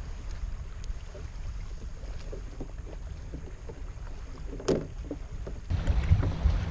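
Wind rumbling on the microphone over small water splashes and ticks around a kayak while a bass is being reeled in, with one sharper splash a little before the end.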